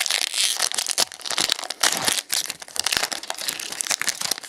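Foil wrapper of a Pokémon TCG booster pack crinkling and tearing as it is opened by hand: a dense run of quick crackles.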